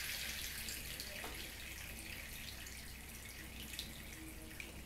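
Water draining through the perforated plastic colander insert of a Tupperware thermo server into the container below, a light trickle that fades toward drips.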